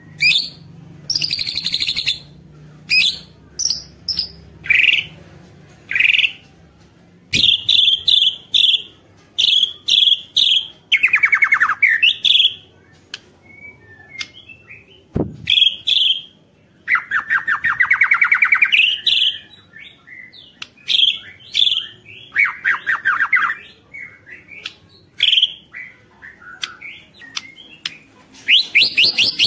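White-rumped shama singing in full voice: a varied run of short, clear whistled notes broken by several rapid rattling trills that fall in pitch, the harsh 'ketrekan' chatter. Two sharp single clicks are also heard, the second about halfway through.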